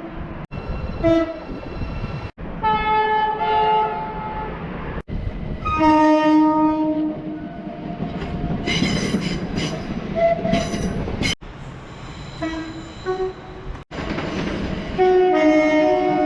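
Train horns sounding in a string of short clips, each cut off abruptly into the next: chords of several steady tones, some held for a second or more and some short toots, with one higher, shriller set of tones about halfway through. The running noise of the trains lies underneath.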